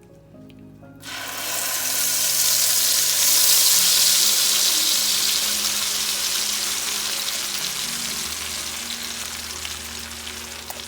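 Blended masala paste hitting hot melted butter in a pan: a loud sizzle that starts suddenly about a second in, then slowly dies down as the paste settles into the fat.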